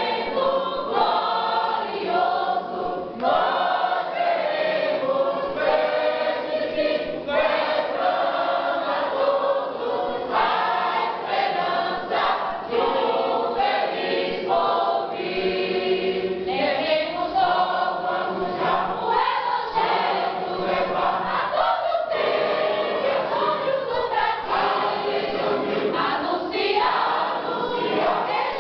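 A mixed choir of men's and women's voices singing a lively gospel hymn together.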